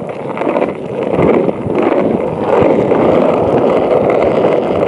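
Cruiser skateboard's wheels rolling over rough, cracked asphalt: a loud, steady rumble.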